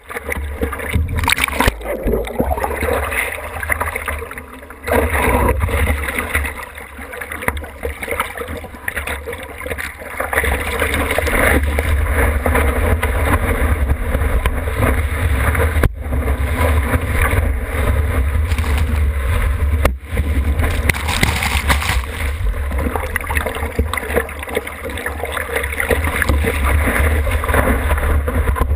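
Seawater splashing and rushing over a surfboard-mounted GoPro in its waterproof housing as the surfer paddles through breaking whitewater, over a steady low rumble.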